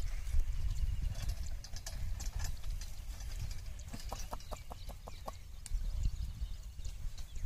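Bullocks ploughing a field: irregular knocks and clicks of hooves and gear, with a quick run of about seven clicks around the middle, over a steady low rumble.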